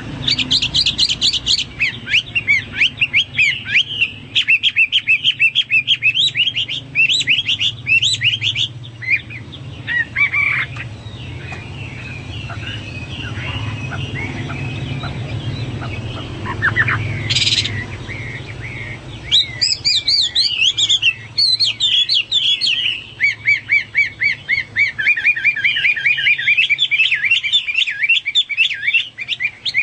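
Chinese hwamei (melodious laughingthrush) singing in fast runs of repeated whistled notes and trills. The song breaks off about a third of the way in, leaving only scattered notes, then the rapid runs resume about two-thirds through. A low steady hum sits under it.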